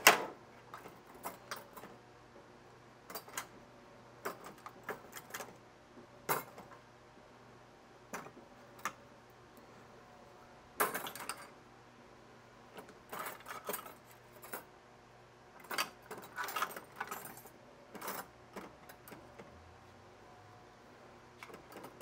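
Scattered clicks and clinks of hand tools being rummaged through and picked up, coming in short clusters with quiet gaps between.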